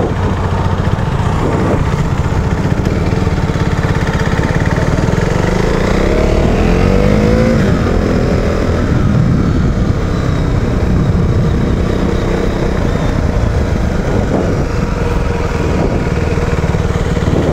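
KTM Duke 390's single-cylinder engine running under way as the bike is ridden, with the revs climbing and dropping back about six to nine seconds in.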